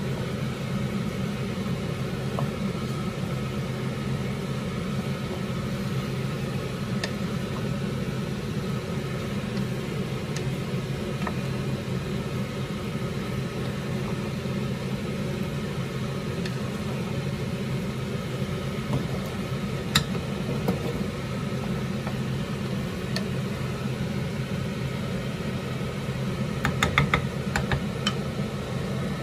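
A steady low mechanical hum, with light clicks of a wooden spatula against a pan as spaghetti is stirred: one sharp tap about two-thirds of the way through and a quick run of taps near the end.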